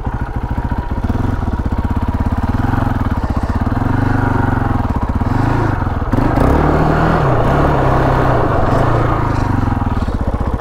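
KTM 525 XC quad's single-cylinder four-stroke engine running at low revs with its separate firing pulses audible, then revving up and down repeatedly under throttle, highest around the middle, and easing back near the end.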